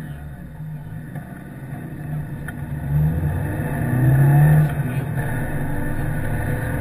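Peugeot 106 rally car's engine accelerating hard, heard inside the cabin. The revs climb and get louder, drop briefly about four and a half seconds in, then climb again.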